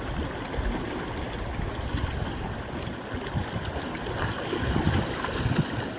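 Small sea waves lapping and splashing against a rocky shore, with wind rumbling on the microphone.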